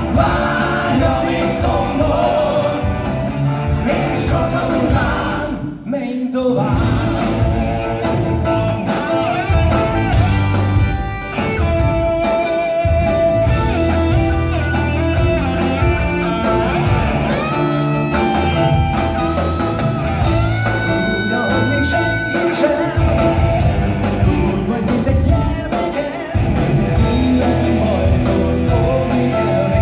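Live rock band playing: electric guitars, bass, drums and keyboards with a male lead singer, heard from the audience in a concert hall.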